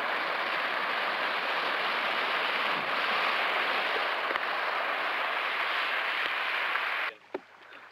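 Motorboat running fast through the water, a steady rushing of motor and hull spray, which cuts off abruptly near the end as the boat runs aground in the shallows.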